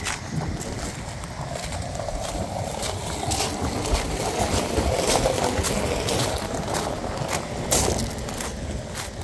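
Footsteps crunching on loose gravel at a steady walking pace.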